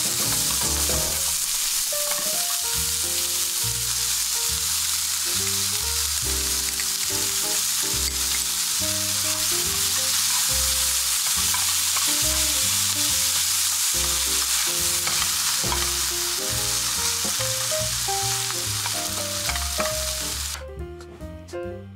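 Pork belly, onions and chilies sizzling in a frying pan while being stirred with chopsticks, a steady hiss of frying fat that cuts off suddenly near the end.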